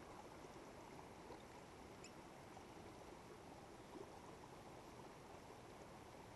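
Near silence: a faint, steady outdoor hiss, with a brief faint high chirp about two seconds in.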